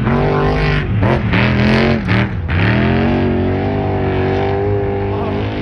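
Off-road race truck engines running at high revs, the pitch swinging up and down. The revs drop sharply about two and a half seconds in, then climb and hold high.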